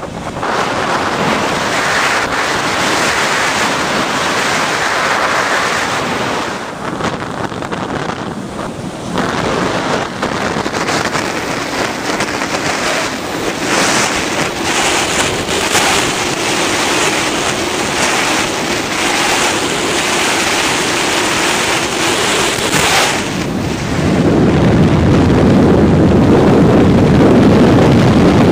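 Airflow rushing over the onboard camera microphone of an unpowered F3F slope-racing glider (Predator 2), rising and falling with airspeed and manoeuvres. Near the end it turns louder and deeper.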